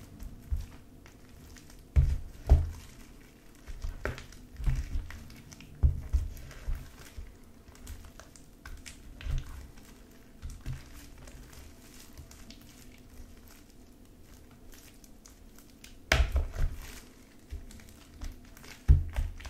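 Sticky glue slime being stirred and stretched with a spatula in a plastic tray: irregular soft squelches, sticky clicks and low thumps, with a louder cluster about 16 seconds in.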